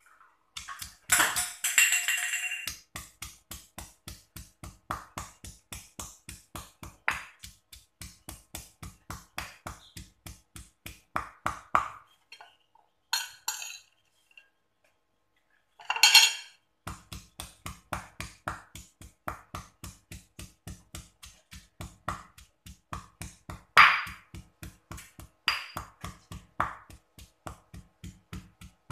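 Background music with a steady beat of about three a second, which drops out for a few seconds near the middle. Over it come occasional louder knocks of a stone pestle pounding dried anchovies and chillies in a stone mortar.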